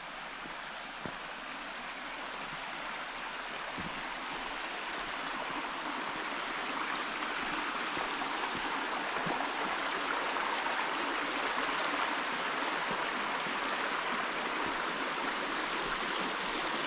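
Rushing water of a forest stream, a steady hiss that grows louder over the first ten seconds or so, as if being approached, then holds.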